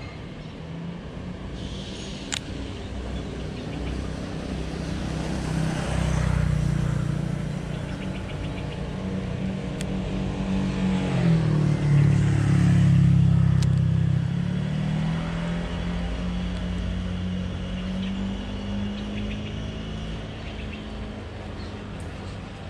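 Motor vehicle engine passing on the road close by, its sound swelling twice and loudest about twelve to thirteen seconds in, with a drop in pitch as it goes by.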